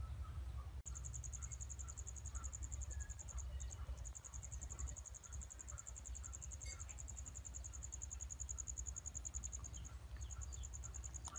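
An insect trilling: a high-pitched, fast and even pulsing that starts about a second in and breaks off briefly twice, over a low steady rumble.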